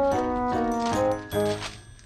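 Background music: a light melodic tune of stepping notes, dying away near the end.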